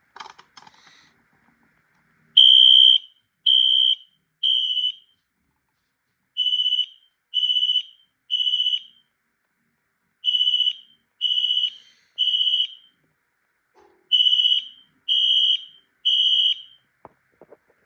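Wheelock NS fire alarm horn sounding the code-3 (temporal-3) evacuation pattern: four rounds of three short, high-pitched tones, each round separated by a pause of about a second and a half.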